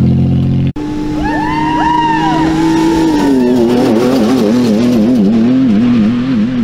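2019 Toyota Tacoma pickup's engine running steadily, then after a sudden cut a group whooping in high rising-and-falling calls as the truck passes. The engine note then wavers up and down repeatedly.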